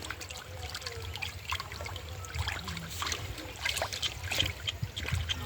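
Water splashing and sloshing in many small irregular splashes and drips, typical of hands working through shallow water.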